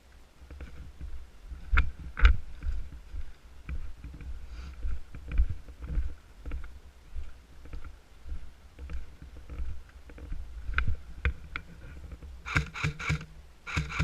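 Low rumble of the player moving with the microphone, with a couple of sharp knocks about two seconds in. Near the end come two short bursts of rapid, evenly spaced clicks over a faint hum, from an airsoft gun firing.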